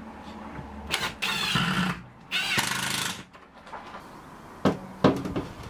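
Cordless drill-driver driving screws through pocket holes into a cabinet panel: two short runs of about a second each, the motor's pitch rising as it winds up. Two sharp knocks follow near the end.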